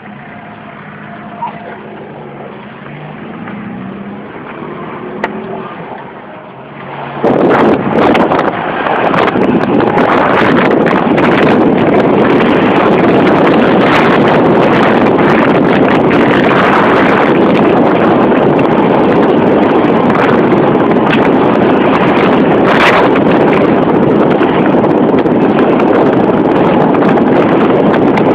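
Car driving, at first a quieter engine hum heard inside the cabin. About seven seconds in, loud rushing wind noise on the microphone cuts in suddenly and stays to the end.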